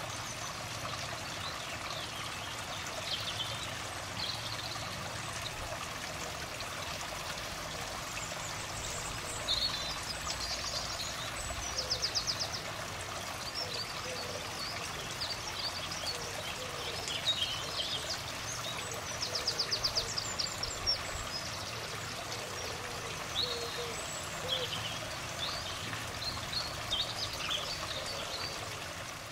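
Small birds singing and calling in short high phrases, with a rapid trill about twelve seconds in and another about twenty seconds in, over a steady rushing background noise.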